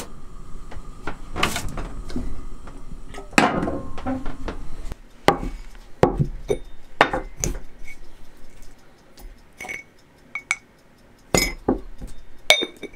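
Mugs, dishes and spoons clinking and knocking as tea is being made: a string of separate clinks and thuds, some with a short ring.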